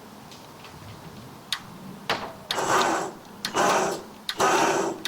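Warco bench-top horizontal band saw being switched on: a few clicks, then three short stop-start bursts of running noise, and near the end its motor catches and runs up with a rising whine.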